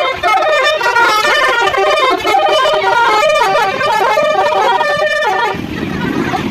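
Telolet basuri musical horn on a passing vehicle playing a rapid tune of changing notes. It cuts off about five and a half seconds in, leaving a low rumble.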